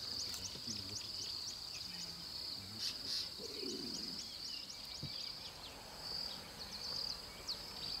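Insects calling in a steady high drone, with a rapid, regular high chirp over it, roughly four a second.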